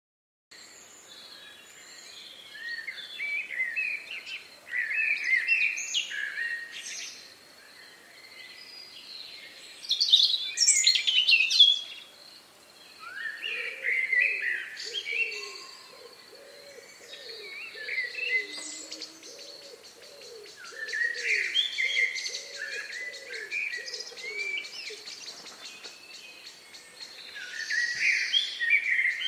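Several songbirds chirping and singing in overlapping, varied phrases. From about 13 s to 22 s a low hooting call repeats about twice a second beneath them.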